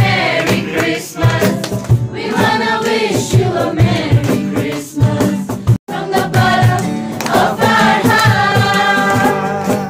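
A group of young people singing a Christmas carol together, clapping along, with an acoustic guitar accompanying. The sound breaks off for an instant just before six seconds in.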